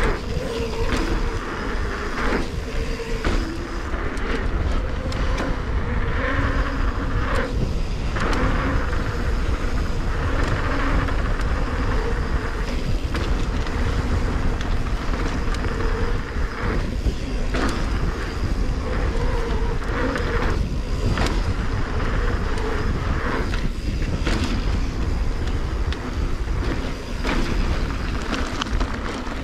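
Mountain bike descending a dirt flow trail: wind buffeting the microphone with a heavy low rumble, tyres rolling on packed dirt, and frequent short clicks and knocks as the bike rattles over bumps.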